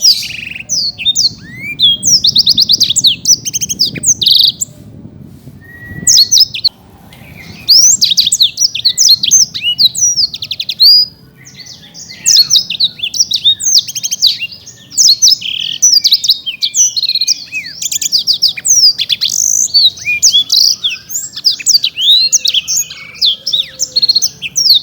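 Black-throated canary (blackthroat) singing in long, rapid phrases of high, sweeping chirps and trills, broken by a couple of short pauses.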